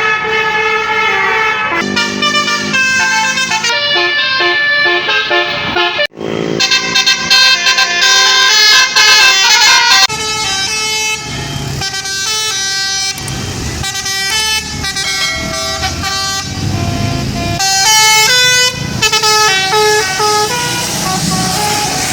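Tour-bus telolet basuri horns: multi-tone horns playing quick stepping melodies, with a brief cut-out about six seconds in. From about ten seconds a bus engine's low rumble runs beneath the horn tunes.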